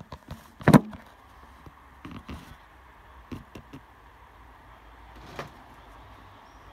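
A few short knocks and clunks, the loudest about a second in, with quieter ones around two, three and a half and five seconds, over a low steady hum.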